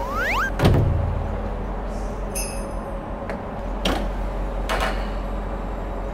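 Sliding glass lid of a shop ice-cream freezer pushed open: a short rising squeak, then a loud knock as it hits its stop a little under a second in. A few light clicks and knocks follow as an ice-cream cup is picked out, over a steady low hum.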